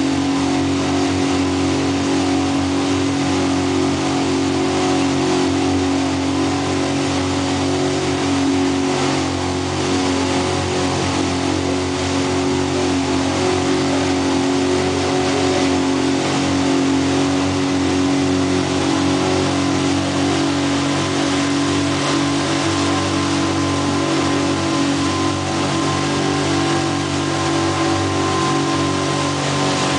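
Tow boat's engine running steadily at towing speed, a constant drone, over the rush of water from the churning wake.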